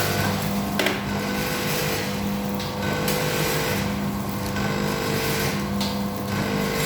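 Automatic vertical sachet packing machine running, a steady mechanical hum with tones that come and go in a repeating cycle of roughly two seconds. A sharp click sounds about a second in.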